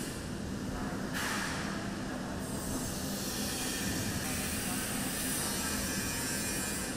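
Steady background hiss with a faint low hum underneath; the hiss shifts in tone about a second in and grows brighter about four seconds in.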